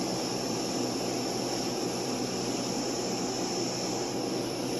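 Steady background hiss with a low hum and a faint steady tone, unchanging throughout, with no distinct events.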